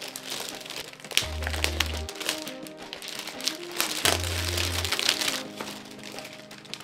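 Background music with a deep bass note that comes in about a second in and again about four seconds in, over clear plastic film crinkling and rustling as it is pulled off a framed award.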